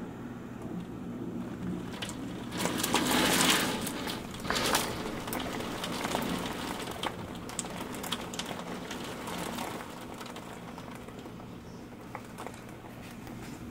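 Rainy-night ambience: a steady low hum under a bed of hiss, with scattered sharp drip clicks. A louder rushing hiss swells about three seconds in and dies away by about five seconds in.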